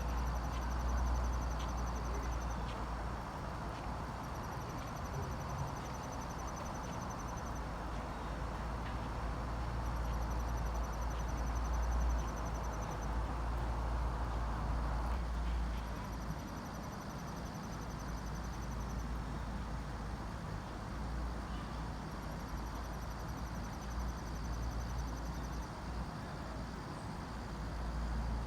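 Outdoor background noise: a steady low rumble and hiss, with a high buzzing trill of about three seconds that comes back several times.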